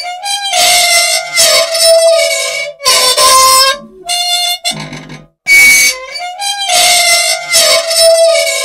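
Loud, unoiled old machine squealing and screeching in pitched bursts about a second long, with short gaps between them. The sound is a dry mechanism crying out for oil, and the same run of squeals repeats about every six seconds.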